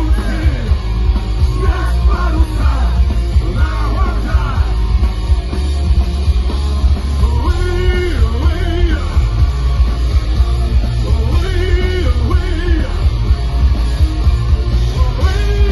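Rock band playing loud punk-style rock, with shouted singing over heavy bass and drums.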